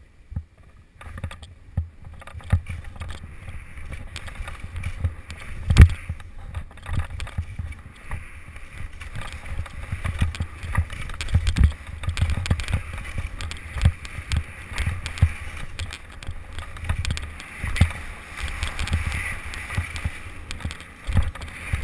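Skis sliding and turning through snow, a continuous rough scraping hiss with many knocks and thumps from turns and bumps, the loudest thump about six seconds in, heard through a helmet-mounted camera.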